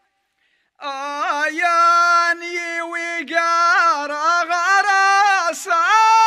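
A single voice singing a slow, ornamented Moroccan rais melody, holding long notes; it comes in about a second in after a short silence.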